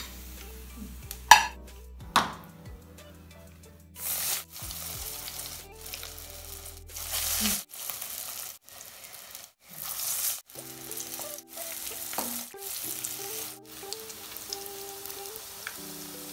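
Beef cutlets deep-frying in hot oil, a steady sizzle broken into short pieces. Two sharp knocks in the first few seconds are the loudest sounds.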